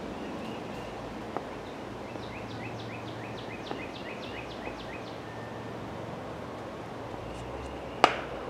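Outdoor ambience with a bird calling a quick series of short falling chirps, about four a second, for a few seconds. Near the end comes one sharp crack with a brief ring, as a cricket bat strikes the ball.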